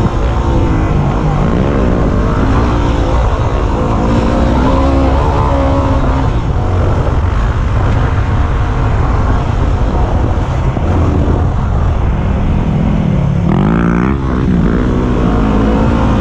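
Yamaha WR250R's single-cylinder four-stroke engine heard from the rider's helmet camera, its revs rising and falling with the throttle, over wind noise on the microphone. About two seconds before the end the revs climb sharply.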